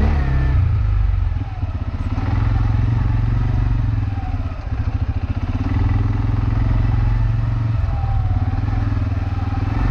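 ATV engine running at low speed with a steady low rumble, easing off briefly twice.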